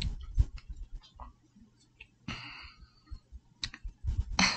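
A few scattered small clicks and knocks, a short hiss a couple of seconds in, and a brief voice sound just before the end.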